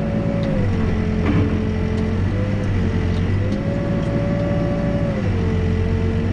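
Backhoe's diesel engine running under load while digging, with a steady whine that drops in pitch about half a second in, climbs back a few seconds later and drops again near the end as the machine is worked.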